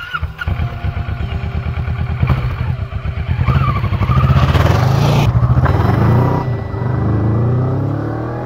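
Kawasaki Vulcan S 650 parallel-twin engine running with an even pulse, then revving up and rising in pitch over the last couple of seconds as the bike accelerates.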